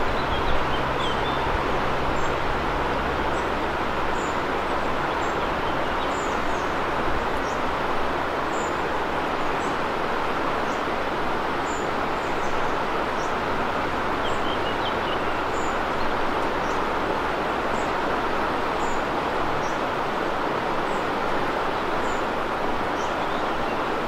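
Steady rush of a fast river running over riffles, with short high chirps repeating about once a second.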